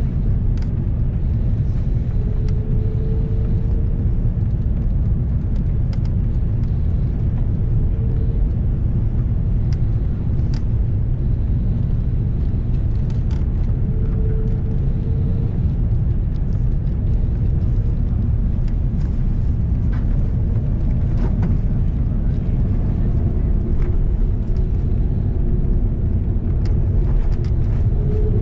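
Steady low rumble of engine and airflow noise heard inside the cabin of an Airbus A330-300 airliner, with a faint hum that comes and goes.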